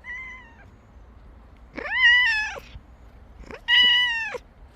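A cat meowing three times: a short, quieter meow at the start, then two longer, louder meows about two seconds apart.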